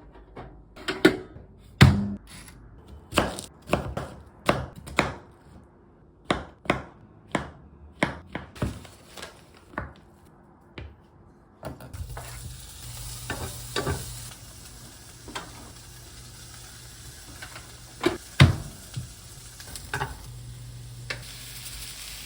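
A run of sharp kitchen knocks and taps from utensils. About twelve seconds in, a frying pan starts to sizzle steadily as food hits the hot oil, and a few more utensil taps sound over the sizzle.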